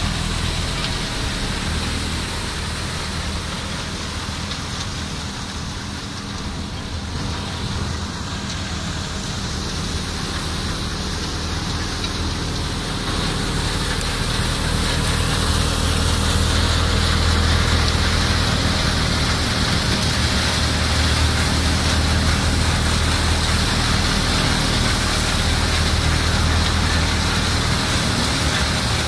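Massey Ferguson 385 tractor's four-cylinder diesel running steadily under load, driving a threshing machine through its PTO shaft, with a steady hiss from the thresher as crop sheaves are fed in. A little louder in the second half.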